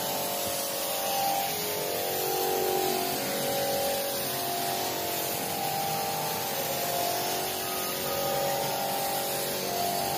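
Paint spray gun hissing steadily as it coats a flat panel, over a faint wavering hum.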